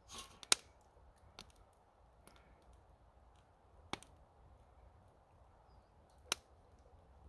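Thick canned soup pouring from a tin into a titanium camping pot, then dripping slowly as the upturned tin drains. A few sharp isolated clicks, about four, are spread through.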